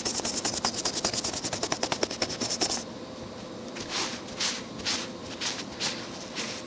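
Small brush scrubbing rapidly back and forth over a rusty chrome-plated sewing-machine trim plate, stopping about three seconds in. Then a cloth wipes the plate in slower rubbing strokes, about two a second.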